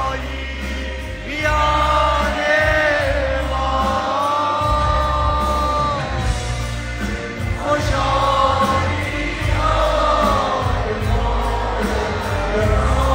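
Live Persian pop band playing with a singer holding long, wavering notes over a heavy bass, heard from within the audience.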